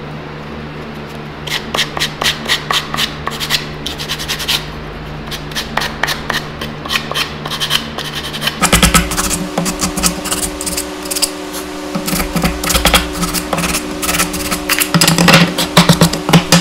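Sandpaper rubbed by hand along the edges of freshly cut wooden strips, smoothing the coarse sawn edges. Rapid back-and-forth strokes come in runs with short pauses, starting about a second and a half in.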